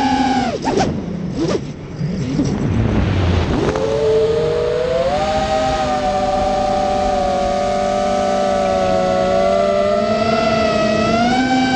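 FPV quadcopter's electric motors and propellers whining, heard from the quad's onboard camera. The pitch drops sharply about half a second in, goes rough and unsteady for a few seconds, then climbs back about four seconds in to a steady whine of several close tones, and rises again near the end.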